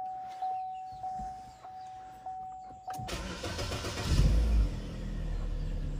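Warning chime in the car's cabin repeating about every 0.6 s, then the Chevrolet Cruze's four-cylinder engine starts about halfway through, revs up briefly and settles to idle.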